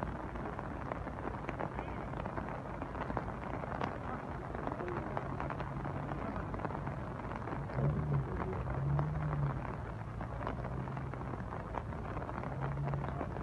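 Steady rain falling with drops ticking, and a few short, low sounds about two-thirds of the way through and near the end.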